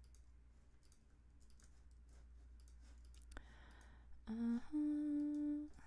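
Faint clicks of typing on a computer keyboard, then about four seconds in a woman hums: two short low notes, then one note held for about a second.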